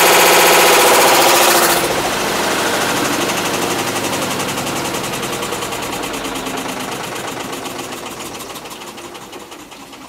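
Hitachi BeatWash top-loading washing machine making a loud grinding drone from a failed clutch, blamed on overloading with laundry. The drone drops off sharply about two seconds in, leaving a fast, even rattle that fades steadily.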